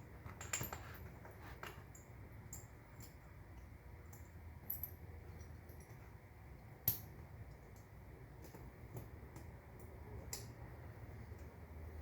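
Scattered light metallic clinks and clicks of a steel tire chain and its S-hooks being handled and worked on, with one sharper click about seven seconds in, over a low steady hum.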